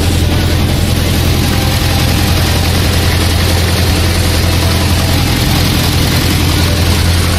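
MTZ-80 tractor's four-cylinder D-240 diesel engine idling steadily after a cold start, a constant low hum.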